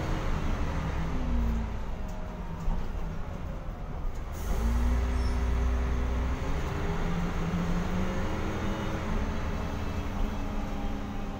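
Diesel engine of a Mercedes-Benz O405 city bus heard from inside the passenger cabin as the bus drives. The engine note climbs and drops back several times as the automatic gearbox shifts, with a heavier low rumble about four and a half seconds in as it pulls harder.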